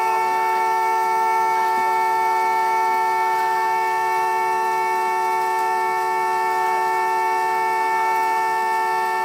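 A broken alarm stuck on, sounding one continuous horn-like blare at two steady pitches that never breaks or changes.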